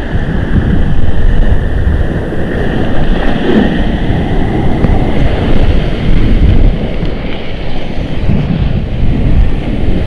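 Choppy ocean surf with wind buffeting the microphone: a loud, uneven rush of water and wind noise.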